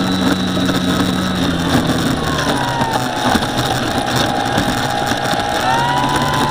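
A model aircraft motor running steadily, its pitch dropping about two seconds in and rising back up near the end as it is throttled.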